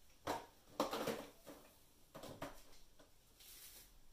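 Someone rummaging through small containers of soap colourant: a few light clattering knocks over the first couple of seconds, then a brief rustle near the end.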